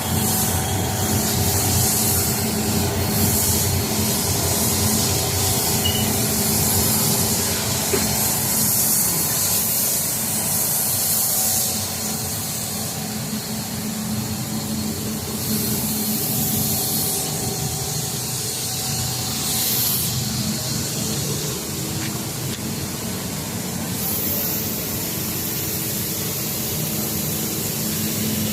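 Richpeace two-saddle computerized mattress quilting machine running steadily: a constant mechanical hum with a high hiss over it that swells and eases every few seconds.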